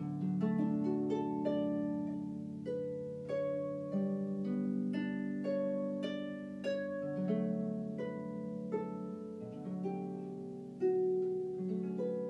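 Background music: a melody of plucked string notes, about two a second, each note dying away, over held lower notes.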